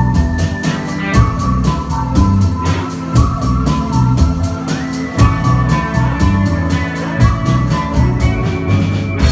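Live band playing an upbeat song: a steady drum beat with bass and held keyboard notes that step up and down.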